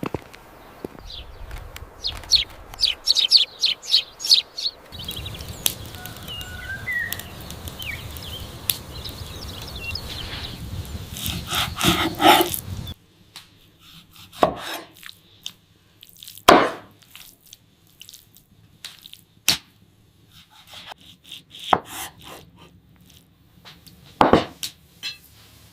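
A series of sharp knocks and clicks from objects being handled. In the first half they come quickly over a steady background rush; about halfway through that background cuts out and the knocks come singly, a second or two apart.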